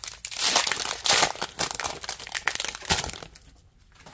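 Foil wrapper of a Pokémon TCG booster pack crinkling as it is handled and opened, a dense run of crackles that dies away after about three seconds.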